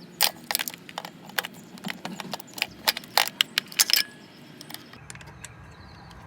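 Irregular metallic clicks and clinks of hand tools and a Torx bit working against metal parts in an engine bay, for about four seconds, then quieter.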